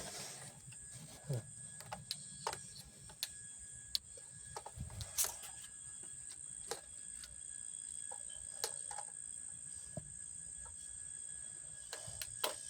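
Irregular clicks and light knocks of metal and plastic parts being handled and fitted while a new gas chainsaw's bar and chain are adjusted into place. A steady high-pitched tone runs underneath.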